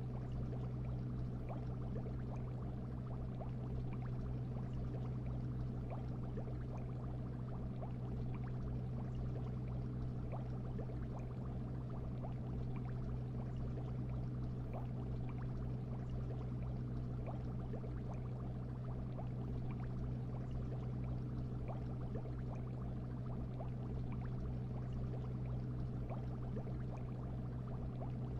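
Aquarium ambience, heard as from inside the tank: a steady low hum with a continuous fine bubbling crackle.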